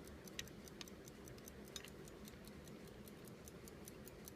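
Faint, even ticking of an Illinois pocket watch running, several ticks a second, a few of them slightly louder.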